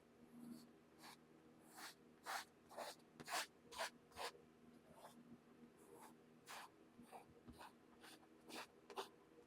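Oil paint being laid onto a canvas in short scratchy strokes, about one or two a second, as the dark land masses are blocked in.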